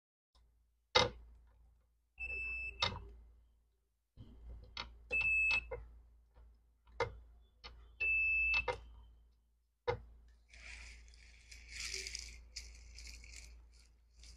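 Multimeter continuity beeper giving three short high beeps, each about half a second long, as test probes touch points on a car smart key module's circuit board; a beep signals a closed path between the probed points. Sharp clicks of the probe tips against the board come between the beeps, and scratchy rubbing follows near the end.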